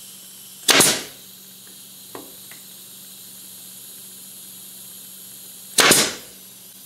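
Senco pneumatic nailer firing twice into plywood, about five seconds apart, pinning glued pieces together; each shot is a sudden bang that dies away within about half a second.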